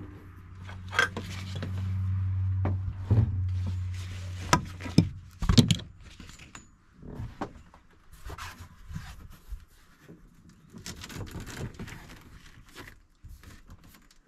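Seat belt webbing and metal buckles being handled, and a thin hardboard sheet laid over the battery box under a bench, giving scattered clicks, knocks and scrapes. A low steady hum under the first few seconds stops about five seconds in.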